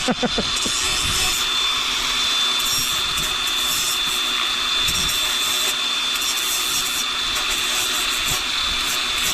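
Angle grinder with an abrasive cutting disc running steadily under load, a continuous grinding hiss with a steady high whine, cutting through a piece of gear.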